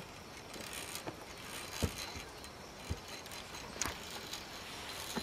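A few separate knocks and clicks over steady outdoor background: a climber in a safety harness stepping along a sloping wooden beam, with his clipped-on gear knocking against the beam and cable.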